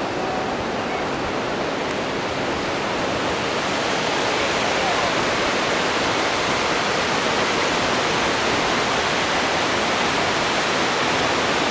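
Steady rush of whitewater as a river tumbles over rocks in the gorge below.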